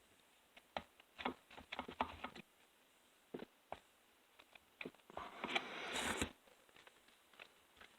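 Small parts clicking and ticking against the chainsaw as chain brake pieces are fitted by hand: a quick run of clicks, then single clicks, then a scraping rustle lasting about a second near the end.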